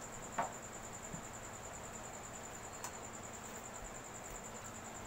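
A plastic cup set down on a wooden table with a single knock, under a steady, high-pitched pulsing trill; a faint click follows near the middle.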